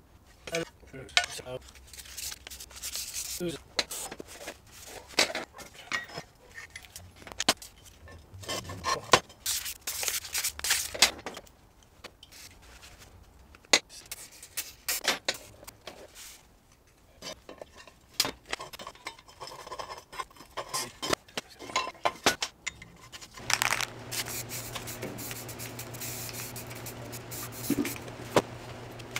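Metal go-kart torque converter parts and tools clinking, tapping and scraping against each other and the workbench as they are handled, in many short sharp knocks and rubs. Near the end the clinking gives way to a steady low hum with hiss.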